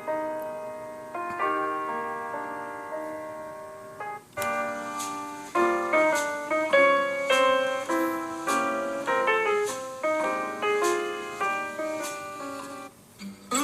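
Samsung Galaxy S20 stock ringtone playing a piano-like keyboard melody. Held chords break off about four seconds in, and quicker, brighter struck notes follow.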